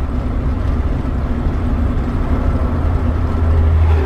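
Bus motorhome's engine running while driving along the highway, a steady low drone with road noise that swells slightly near the end.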